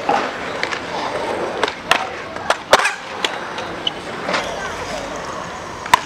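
Skateboard wheels rolling on concrete with a steady rumble, broken by several sharp clacks of the board striking the ground. The loudest clack comes about three seconds in.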